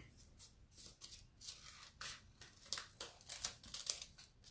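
Faint, irregular crinkling and rustling of a décor transfer sheet being handled, as a small seaweed piece is picked out of it.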